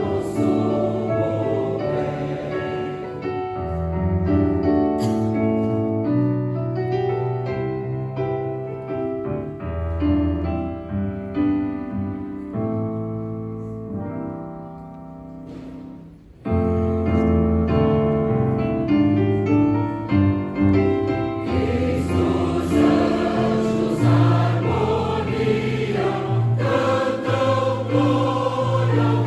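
Church choir singing a medley of traditional Christmas carols in sustained chords. About fifteen seconds in, the singing fades to a soft passage, then the full choir comes back in suddenly.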